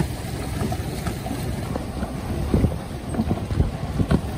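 Strong wind buffeting the microphone in irregular gusts, over choppy river water.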